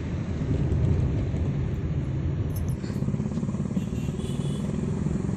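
Steady low rumble of car engine and road noise heard from inside the cabin of a moving car in city traffic.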